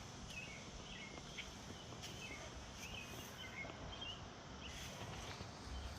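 Quiet outdoor ambience: small birds chirping, with short high chirps coming several times a second over a faint steady hiss.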